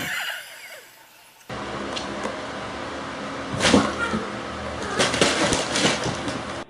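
A cat's sounds mixed with knocks and clattering handling noise. The sound changes abruptly about a second and a half in, where a new clip begins.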